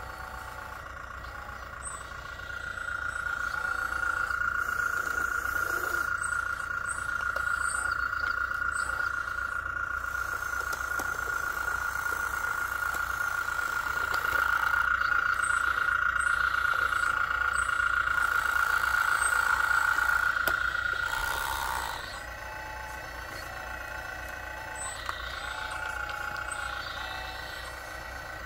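Radio-controlled model Kobelco excavator whining steadily at one pitch as it swings round and works its boom and bucket. The whine sets in about two seconds in and drops away to a lower running sound about three-quarters of the way through.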